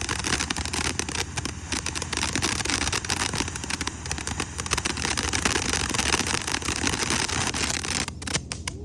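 A consumer fireworks cake firing, with a dense, rapid crackling from its crackle effects. It stops about eight seconds in with a few last pops.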